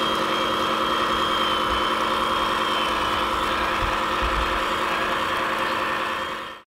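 Engine idling sound from a radio-controlled 8x8 tipper truck, steady and even, most likely from the truck's sound module. It cuts off abruptly about six and a half seconds in.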